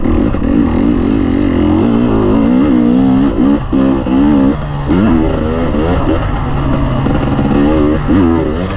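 Enduro motorcycle engine ridden on a dirt track, its pitch rising and falling again and again as the throttle is opened and closed, with two brief drops in the middle.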